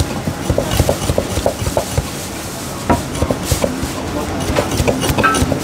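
Chinese cleaver chopping char siu (barbecued pork) on a thick round wooden chopping block: a run of short knocks, about three or four a second, as the blade cuts through the meat into the wood.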